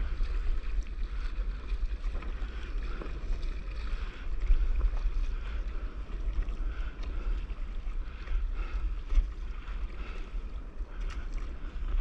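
Wind buffeting the microphone in a steady low rumble, with water lapping and splashing around a paddleboard on choppy sea.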